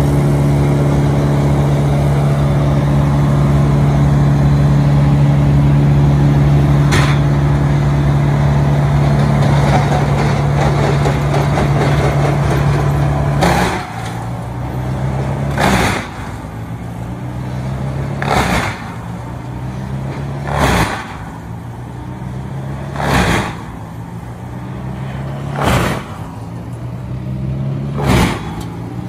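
Wood chipper engine running steadily at high speed. About halfway through it drops to a lower note, and from then on a short hissing burst comes about every two and a half seconds.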